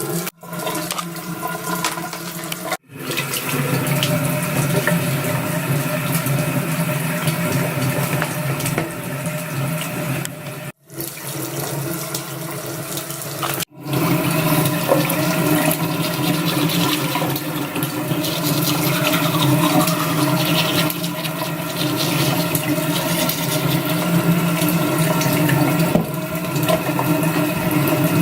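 Hair dryer running steadily, a motor hum with an even rush of air, broken by abrupt cuts three or four times.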